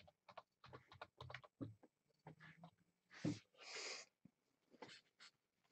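Faint handling noise from trading-card packs and cards being opened: a run of small clicks and rustles, then two short, louder crinkling rasps just after three seconds in.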